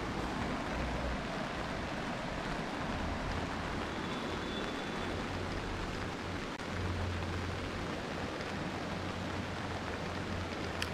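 Heavy rain falling steadily, a continuous even hiss with a low rumble underneath.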